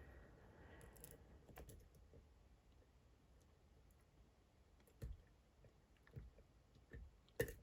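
Near silence broken by a few faint, scattered clicks of a lock pick working the pins of a Dom IX Twinstar lock cylinder, the loudest near the end. The picker is hunting for a front pin that has not yet set.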